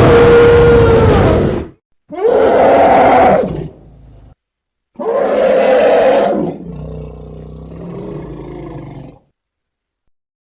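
Stock dinosaur roar sound effect: three loud roars, the last trailing off into a quieter, lower rumble that stops about nine seconds in.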